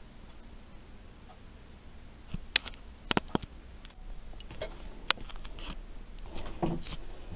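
Handling noise in a small room: a few sharp clicks and knocks scattered through, and a short rustle near the end.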